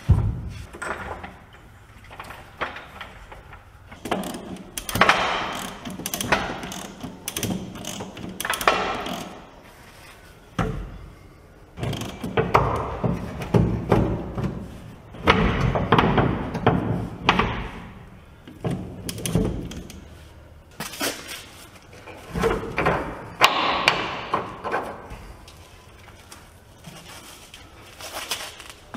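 A string of irregular metal clanks, knocks and rattles as a truck's rear leaf-spring pack is worked loose and handled on a chain hoist, with a few louder bangs.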